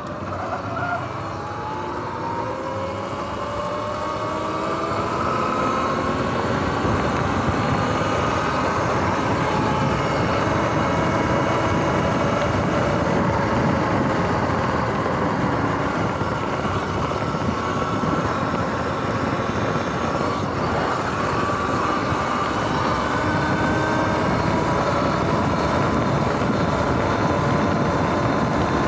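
Sur-Ron X electric dirt bike's motor whine climbing in pitch as the bike accelerates over the first few seconds, then holding steady at cruising speed. Wind and tyre noise rush under it.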